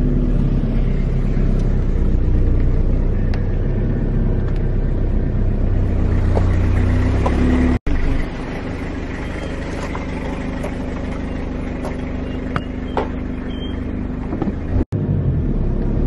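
Car engine and tyre rumble heard from inside the cabin while driving slowly, a steady low hum. The sound drops out for an instant twice, about halfway through and near the end.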